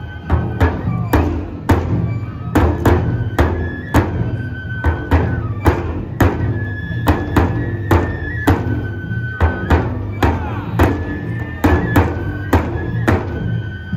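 Neputa festival music: large taiko drums beaten about twice a second under a high flute melody of held notes.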